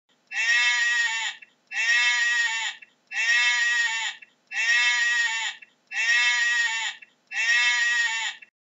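Sheep bleating six times, each bleat about a second long, evenly spaced just over a second apart; the same bleat repeats each time.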